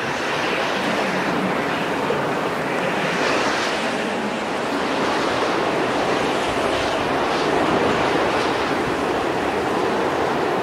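Ocean surf: a steady rushing of waves that swells gently and never breaks off.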